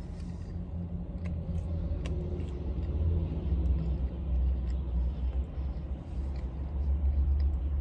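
Steady low rumble of an idling car heard from inside the cabin, with a few faint clicks.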